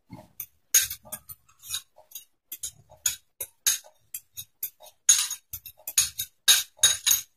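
A metal spoon clinking against a ceramic bowl while stirring a beaten-egg mixture: many quick, irregular clinks, some with a short ring.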